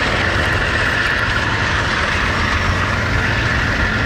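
Freight train of empty autorack cars rolling past, a steady rumble of wheels on rail with a constant higher ringing band above it.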